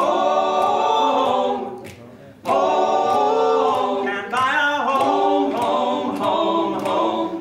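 Barbershop quartet singing a cappella: four men's voices holding close-harmony chords. The chord fades out a couple of seconds in, and after a brief pause the voices come back in together. Sharp clicks recur at a regular beat.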